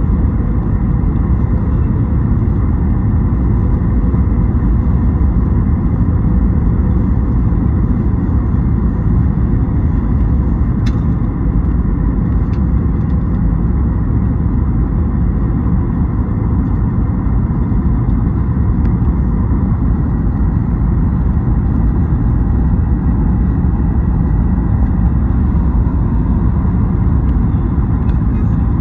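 Steady low rumble of engine and airflow noise inside the cabin of a Boeing 737 MAX 8, its CFM LEAP-1B turbofans running at approach power on the descent to landing. A faint steady hum sits over the rumble.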